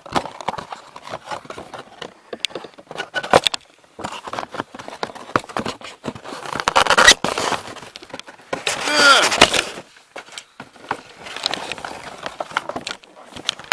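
Packaging for a pair of Skullcandy headphones crackling and clicking as the headphones are pulled out, in an irregular run of crinkles, snaps and rustles. A short voice-like sound comes about nine seconds in.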